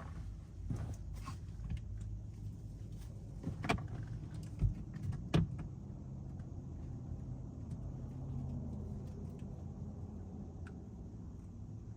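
Mitsubishi Outlander driving, heard from inside the cabin as a steady low engine and road hum. A few light knocks and clicks come between about four and five and a half seconds in.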